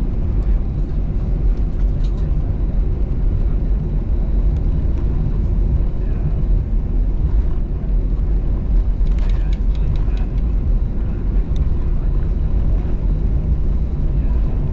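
Steady low cabin rumble of an Airbus A320-214 taxiing, its CFM56 engines running at idle thrust.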